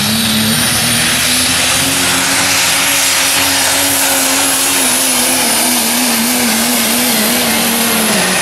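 Super stock diesel Ford Super Duty pickup at full throttle pulling a sled, a loud steady engine drone that climbs a little and wavers, with a high thin whine above it. Near the end the engine note falls away as the pull ends.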